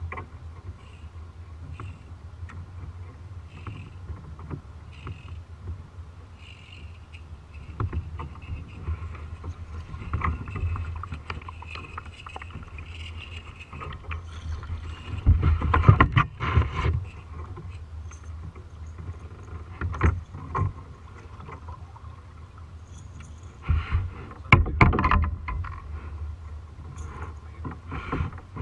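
Water lapping against a plastic kayak hull under a steady low rumble, broken every few seconds by louder knocks and handling sounds on the boat, the loudest clusters about 16 and 25 seconds in.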